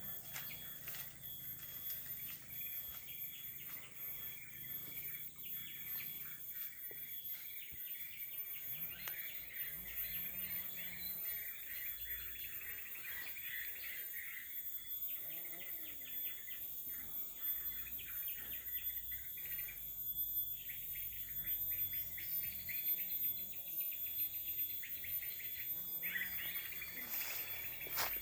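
Outdoor nature ambience of insects chirping steadily in a dense rapid pulse, with birds calling.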